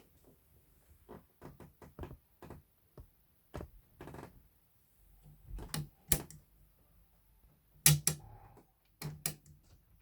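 Irregular mechanical clicks and light knocks from a Novum straight-stitch sewing machine being worked by hand. The sharpest clicks come around six seconds in and as a close pair near eight seconds.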